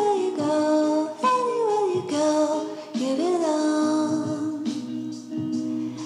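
Music with a singing voice over sustained chords, the melody gliding down in short phrases.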